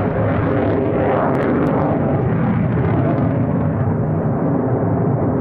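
Military jet aircraft running loud and steady, a deep rumble with a hiss whose top end eases slightly toward the end.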